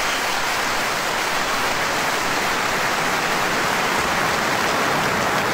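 A steady rushing hiss, even throughout, with no pitch or rhythm.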